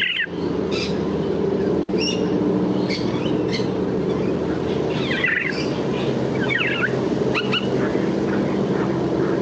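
Field recording of a regent honeyeater singing a mimicked black-faced cuckoo-shrike song: short phrases of quickly falling notes every few seconds, with brief higher notes between, over a steady low background rumble.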